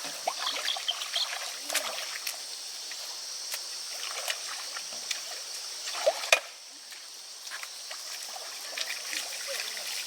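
Water trickling steadily with small splashes, and a single sharp knock about six seconds in.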